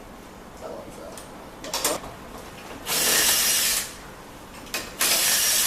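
A power tool run in two short bursts, the first just under a second long and the second shorter, with a few clicks and knocks of tools before them.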